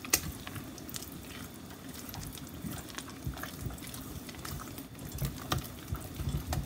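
Silicone spatula beating a thick, wet potato, egg and milk batter in a stainless steel bowl: fast wet stirring with scattered light ticks against the bowl, and a sharp tap just after the start.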